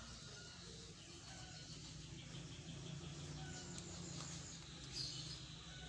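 Faint scraping of a knife scoring the thick skin of a large Kendil avocado, over a steady low hum and a few faint chirps.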